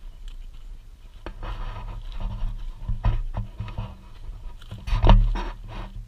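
Dog panting and sniffing up close, with scraping and knocking on the ground-level camera as it is nudged; the loudest knock comes about five seconds in.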